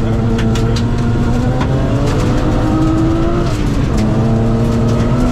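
Rally car's straight-six engine under hard acceleration, heard from inside the cabin: the revs climb through one gear, drop sharply at an upshift a little past halfway, then climb again. Sharp ticks of gravel hitting the car run through it.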